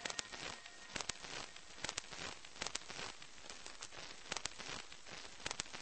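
Crackling noise: a steady hiss with irregular sharp clicks, a few a second.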